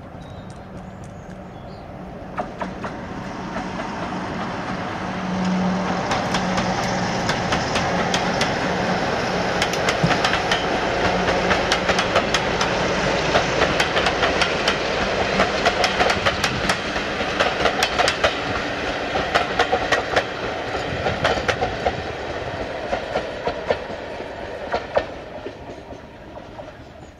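BR Class 47 diesel-electric locomotive passing with a train of coaches: a steady low engine drone swells in the first seconds. Then the wheels set up a fast, dense clicking over the rail joints as the coaches roll by, which dies away near the end.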